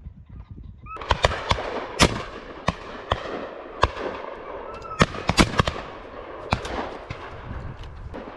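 Volley of shotgun fire from a line of guns on a driven game shoot: a quick, irregular run of a dozen or more shots starting about a second in, some loud and close, others fainter and further along the line.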